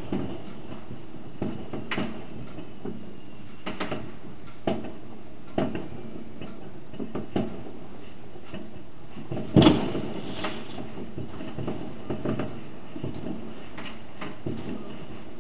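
Distant fireworks and firecrackers going off: scattered sharp bangs and pops at irregular intervals over a steady background hiss, the loudest bang about ten seconds in.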